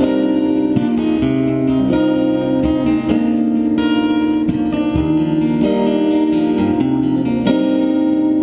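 Live band playing amplified guitars: strummed chords changing every second or so, with no singing.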